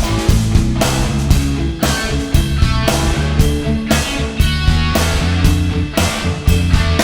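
Loud rock music with distorted electric guitar, bass and a steady drum beat.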